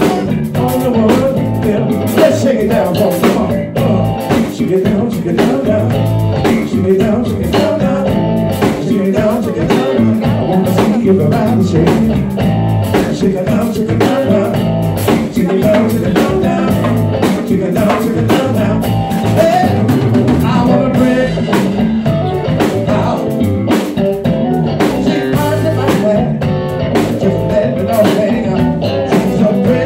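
Live band playing a blues-funk groove on drum kit and electric bass guitar, with a singer's voice over it. The music is loud and steady, with no pause.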